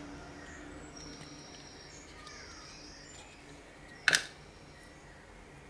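A single sharp click about four seconds in, over faint high chirps in the background.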